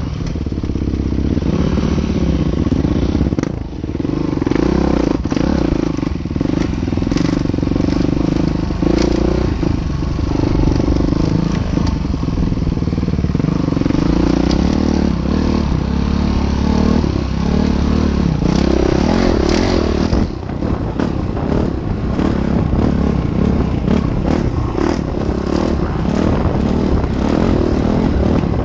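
Train rolling over a railroad bridge: a steady loud rumble with many clanks and rattles running through it.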